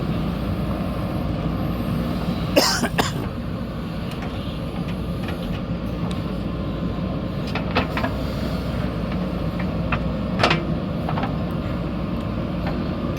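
Diesel engine of a JCB backhoe loader running steadily, with three short, sharp noises about 2.5, 8 and 10.5 seconds in.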